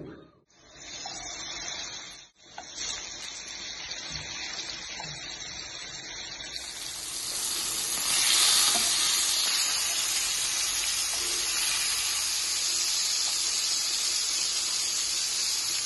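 Spice-coated fish steaks sizzling in hot oil in a frying pan: a steady frying hiss that grows louder partway through and then holds.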